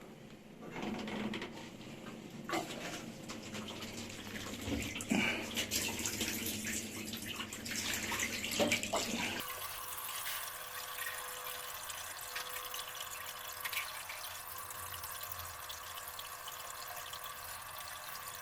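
Bosch Maxx 5 washing machine draining through its repaired drain pump: water gurgling and rushing out, with a few knocks. About nine seconds in the sound changes suddenly to a steady hum with a constant tone and hiss.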